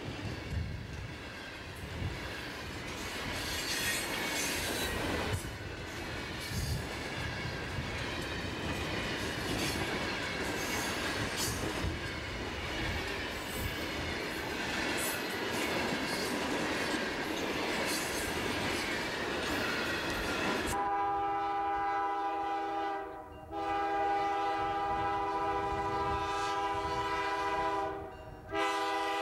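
Loaded stone hopper cars rolling past close by, their wheels clacking over the rail joints. About two-thirds of the way through this gives way to EMD GP9 diesel locomotives approaching and sounding their air horn in long blasts with short breaks.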